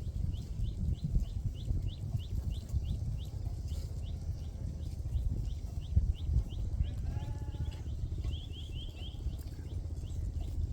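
Sheep: one short bleat about seven seconds in, over a constant low rumble. A high chirp repeats about three times a second throughout.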